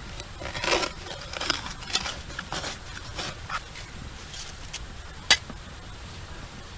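Spade digging into wet beach sand: a run of short scraping strokes, then a single sharp click about five seconds in.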